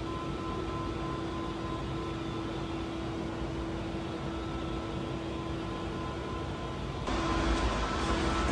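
Steady mechanical hum with a held low tone and a fainter higher one, the room tone of a workshop; about seven seconds in it steps up louder and fuller.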